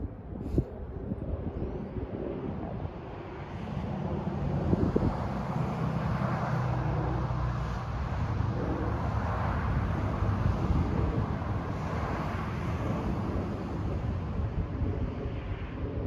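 Steady engine rumble of a passing vehicle, swelling in about three and a half seconds in and holding, with a couple of short knocks near the start.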